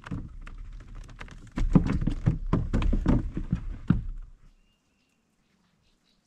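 Dull thumps and sharp taps of gear and body shifting against a plastic fishing kayak's hull, in a quick irregular run, stopping about four and a half seconds in.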